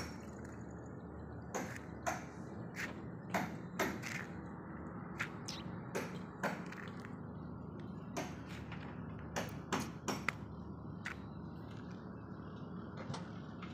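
Irregular sharp clicks and taps, some in quick pairs, over a steady low hum.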